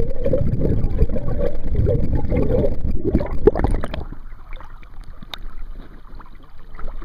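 Muffled, rushing rumble of creek current heard through a microphone held underwater, with splashing knocks about three seconds in. About four seconds in it drops to the quieter, even sound of flowing creek water above the surface.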